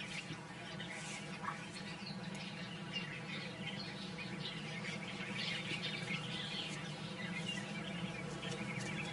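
Wild birdsong: many short, high bird chirps and calls overlapping throughout, over a steady low hum.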